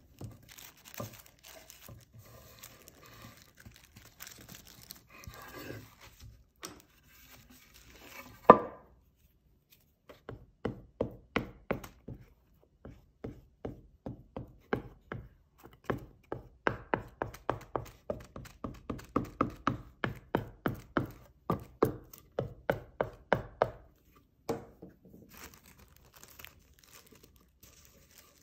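Glue stick rubbed briskly back and forth over paper on a wooden tabletop: a long run of sharp, rhythmic strokes about three a second. Before it, tissue paper rustles and there is one sharp knock; near the end the tissue paper rustles again as it is pressed down.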